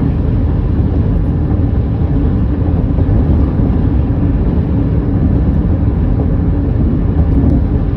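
Steady road and engine rumble of a car heard from inside the moving car, with no sharp events or changes.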